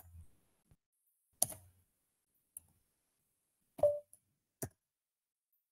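A few scattered single clicks from a computer mouse and keyboard, about a second apart, the third the loudest.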